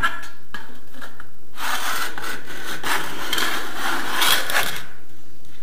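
Metal corner trowel scraping along wet plaster in a wall corner: a few short strokes, then one long continuous scrape that stops shortly before the end.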